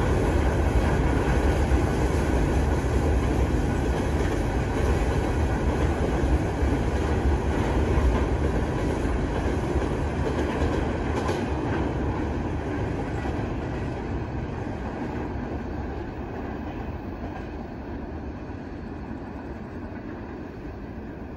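Freight train wagons rolling along the rails, the noise of wheels on track slowly fading as the train draws away.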